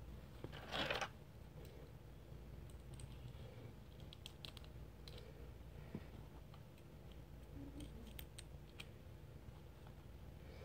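Handling of small plastic action-figure parts and a clear plastic blister tray: a brief crinkling rustle about a second in, then scattered faint clicks and taps.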